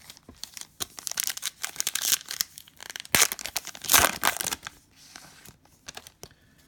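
A Panini Prizm basketball card pack wrapper being torn open and crinkled by hand: bursts of tearing and rustling, loudest in the middle, easing off after about five seconds.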